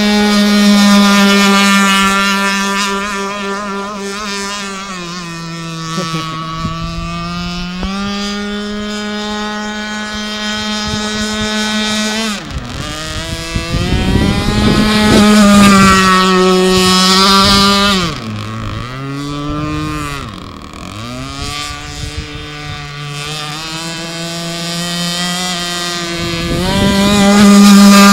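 Fuel engine of a radio-controlled blade racing boat running hard, its pitch repeatedly dropping and climbing as the throttle is eased and opened and the boat passes by. It is loudest a second or so in, about halfway, and again near the end.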